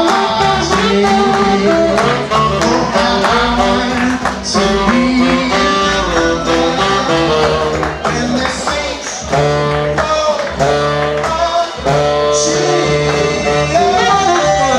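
Upbeat jazz-style music played by a band, with plucked strings and a steady beat.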